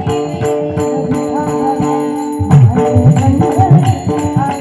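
Instrumental kirtan accompaniment between sung lines: a harmonium holding steady notes, a hand drum striking a rhythm that gets heavier about halfway through, and small hand cymbals (taal) jingling.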